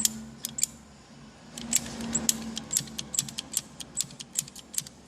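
PVC pipe being cut to length with a hand pipe cutter: a quick, even run of sharp clicks, about five a second, starting about a second and a half in.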